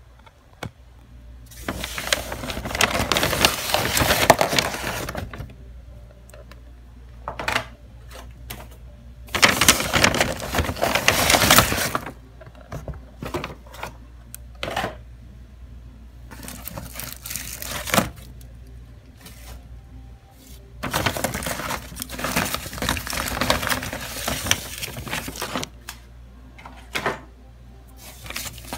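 A paper takeaway bag and paper food packaging rustling and crinkling as items are handled and lifted out, in four spells of a few seconds each. Light clicks and taps of boxes, plastic cutlery and sachets come between the spells.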